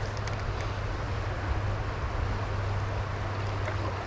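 Steady rush of a flowing trout stream, with a low rumble of wind on the microphone.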